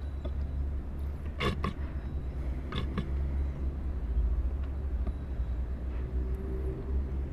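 Steady low outdoor rumble, with a few light knocks about a second and a half and three seconds in as a plastic engine-oil bottle is handled against a Honda CBR150R's oil filler during a top-up.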